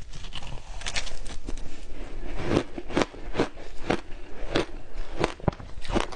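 Frozen matcha-powdered ice being bitten and chewed close to the microphone: about a dozen sharp, irregular crunches.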